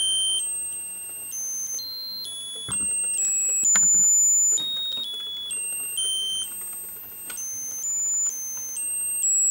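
Musical lotus-flower birthday candle's electronic music chip playing its tinny beeping tune, one thin high note after another in quick steps.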